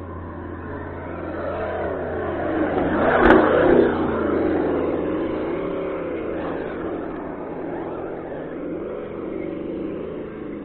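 Electric whine of an RC monster truck's GoolRC 3674 1900kv brushless motor and drivetrain, the pitch rising and falling as the truck speeds up and slows down across grass. It is loudest about three seconds in, with a sharp knock at that moment.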